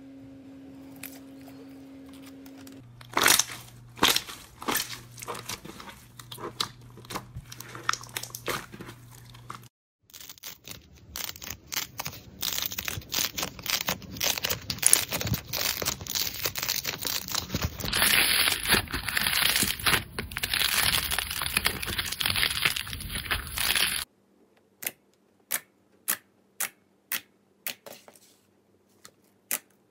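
Slime being squeezed, pressed and poked by hand, giving sticky clicks and crackles. They thicken into dense crackling through the middle, then become separate pops about twice a second near the end as fingers poke into a glossy slime.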